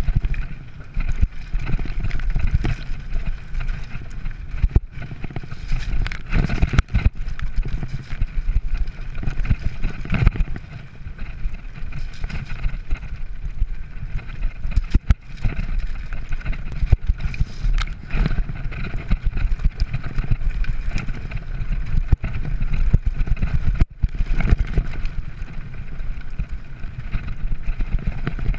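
Mountain bike descending rough gravel singletrack at speed: tyres on loose stones, with the bike clattering and knocking over bumps, and heavy wind rumble on the microphone.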